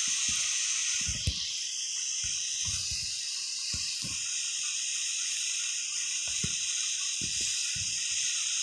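Steady background hiss, with a few faint, short low knocks scattered through it.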